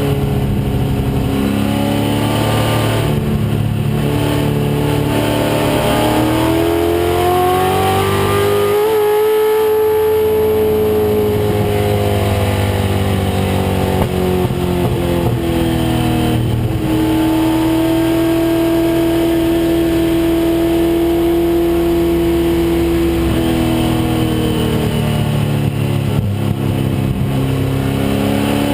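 1996 Ford Mustang race car's engine running hard on track, its pitch climbing and falling as it accelerates and lifts, with a sudden change about sixteen seconds in.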